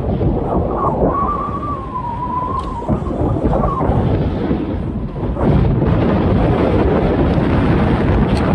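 Wind buffeting the microphone of a camera on a moving bicycle, a loud rumbling rush over road noise. A thin wavering whine comes in about a second in and fades after about three seconds.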